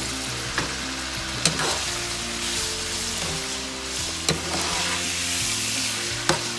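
Sliced peppers and cherry tomatoes sizzling in hot oil in a frying pan as a spoon stirs them, with four sharp clinks of the spoon against the pan.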